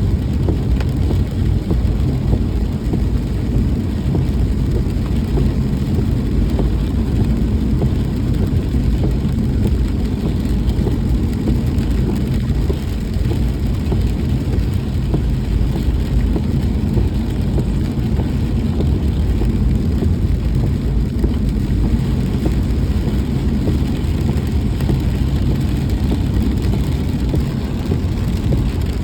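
Vehicle driving steadily in the rain: a constant low rumble of engine and road noise with a faint hiss of wet tyres and rain.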